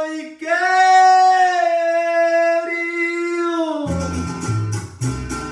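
A man's voice holding one long, high sung note for about three seconds with no accompaniment under it. Near the end a mariachi-style backing track comes back in, with bass notes and strummed guitars.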